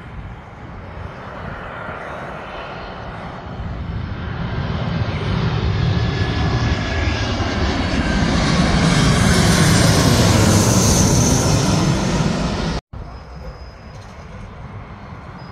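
Twin-engine narrow-body jet airliner passing low overhead: its engine roar builds steadily to a loud peak about ten seconds in, with sweeping, phasing tones as it goes over. The sound cuts off abruptly near the end, leaving a fainter distant engine noise.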